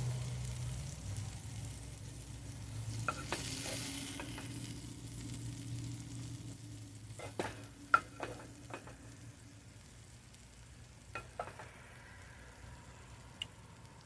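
Food sizzling in a hot pan, the sizzle dying away, while a utensil scrapes and clicks against the pan and dish several times, the sharpest knock about eight seconds in. A steady low hum runs underneath.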